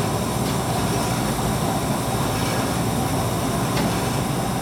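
Doall 2013-10 20-inch vertical bandsaw running steadily without cutting, in its low speed range.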